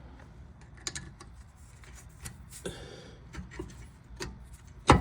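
Scattered metallic clicks and knocks of hand tools and bolts as the rear brake caliper's fasteners are put back on, with a short rasp a little before 3 s and a sharp knock near the end.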